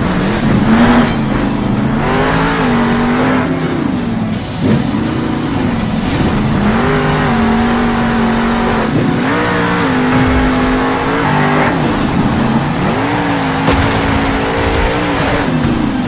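A motor revving up and down over and over, its pitch climbing, holding for a second or two, then dropping, like a vehicle being driven hard with the throttle worked on and off.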